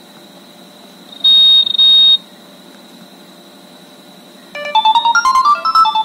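Nokia 3650 ringtone previews played through the phone's speaker. About a second in comes a loud double burst of an electronic desk-phone-style ring. After a short pause, a quick electronic MIDI melody of stepping notes starts near the end.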